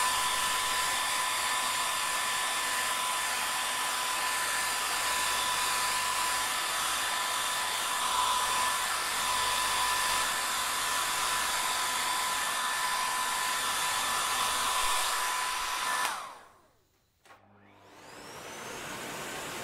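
A small electric air-moving motor running with a steady airy whine and fixed tones, cutting off abruptly about 16 seconds in; after a second or so of silence a motor starts again, its whine rising as it spins up.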